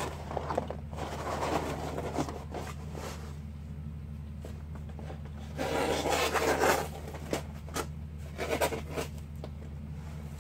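Cardboard being handled and worked into a box: irregular rubbing and scraping of cardboard, loudest about six seconds in, over a steady low electrical hum.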